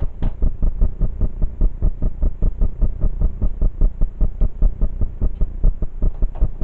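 Steady low throbbing hum that pulses evenly about six times a second.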